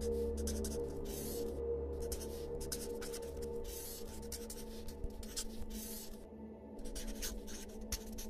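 Scribbling on paper, a writing tip scratching in short bursts of strokes with brief pauses between, over soft background music with low held notes.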